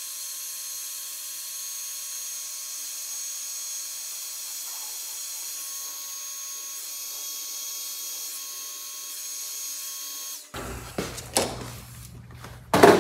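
Electric heat gun running steadily, its fan blowing with a faint steady whine, as it heats a solder sleeve connector on speaker wires until the solder inside melts. It switches off about ten and a half seconds in, and a few knocks follow.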